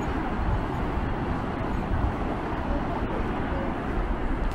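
Wind blowing across the microphone: a steady, deep rushing noise that rises and falls a little, with no distinct events.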